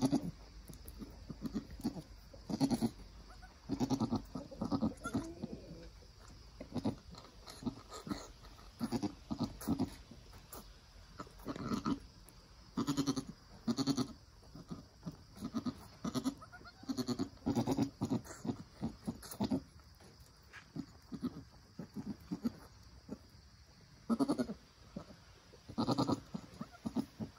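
Nigerian Dwarf doe giving many short, low bleats in irregular runs, the soft calls a mother goat makes to her newborn kid.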